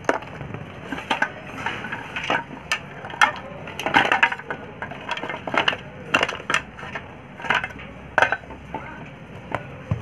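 Irregular clicks, knocks and scrapes of a mixer grinder being taken apart by hand: a screwdriver working inside the plastic housing and the motor being lifted out of it.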